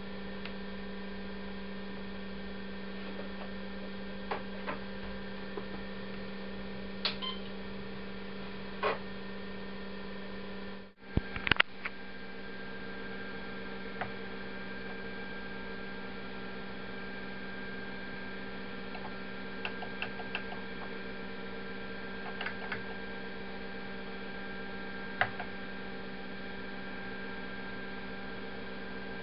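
Steady electrical hum from a running 1982 Apple III computer and its monitor, with scattered sharp clicks. About eleven seconds in the sound drops out briefly, a cluster of louder clicks follows, and then come single light clicks, like keys pressed to move through the utilities menu.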